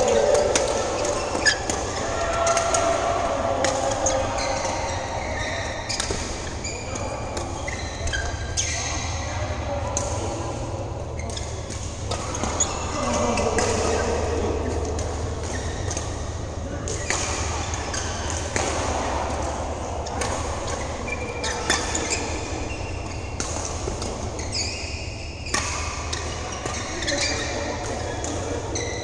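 Badminton rackets hitting shuttlecocks on several courts in a large hall: sharp, echoing hits at irregular intervals, with short high shoe squeaks on the court mats and a steady low hum.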